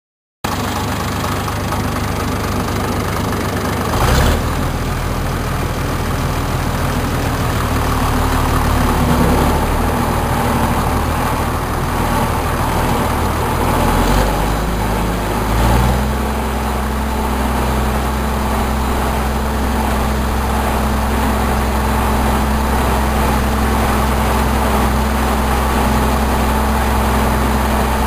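1961 Case 930 tractor engine running steadily while the tractor is driven. There is a short loud knock about four seconds in, and the engine note steps up slightly about fifteen seconds in, then holds steady.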